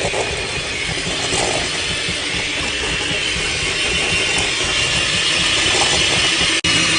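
Subway train running, a loud steady rattle and rush of noise that stops abruptly near the end and resumes at once.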